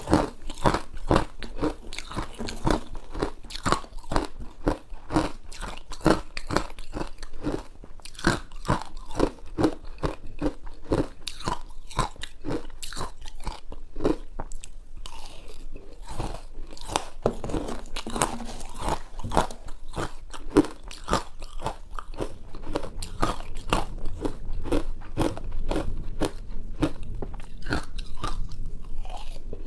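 Ice being bitten and chewed close to the microphone: a rapid run of sharp crunches and cracks, several a second, with a slightly quieter stretch about halfway through.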